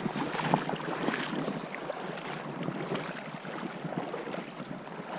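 Running river water flowing and gurgling, a steady rush dotted with small splashy bubbling sounds.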